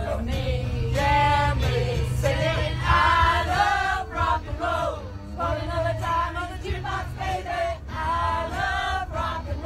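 A group of people singing together in chorus, many voices on held notes, along to music with a steady bass line.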